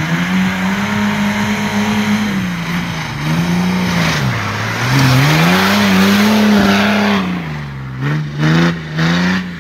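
Modified off-road 4x4's engine revving up and down repeatedly as it drives through a muddy rutted track, with the rush of tyres churning mud loudest in the middle. Several short quick throttle blips near the end.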